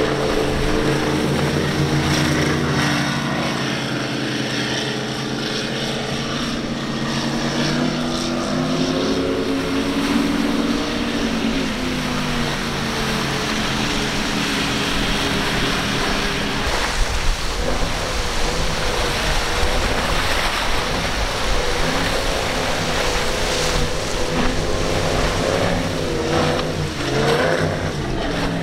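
Performance powerboat's engines running hard at speed through rough water, the engine note rising and falling as the throttle changes, over a steady rush of spray, water and wind.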